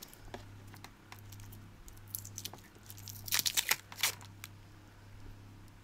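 Fingernails scratching and picking at the tape and stickers wrapped around an old mains plug: small crinkling, tearing and clicking sounds, busiest about three to four seconds in.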